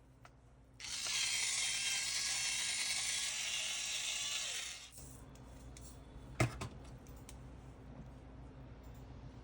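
A dry, ratchet-like mechanical grinding sound lasting about four seconds, starting and stopping abruptly, followed a moment later by a single sharp click.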